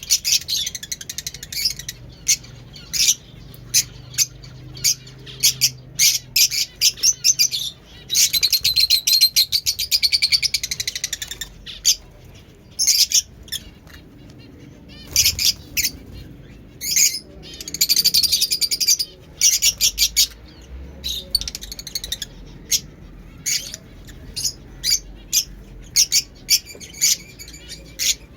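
Fischer's lovebirds chirping in sharp, high-pitched bursts, with longer runs of rapid chattering about eight to eleven seconds in and again around eighteen seconds.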